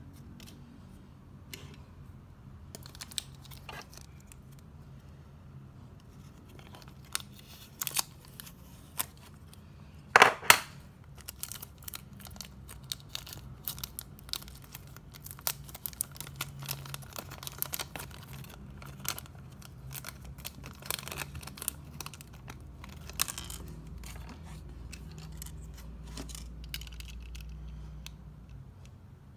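Thin clear plastic packaging being handled and peeled off a small diecast model car: scattered crinkling and small clicks, with a short, sharp double crackle of plastic about ten seconds in as the loudest sound.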